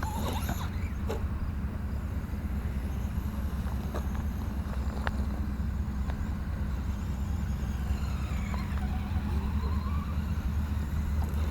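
Traxxas Stampede 2WD RC truck, fitted with the optional speed gearing, running with its electric motor whining in faint rising and falling glides over a deep steady rumble, with one sharp tick about five seconds in.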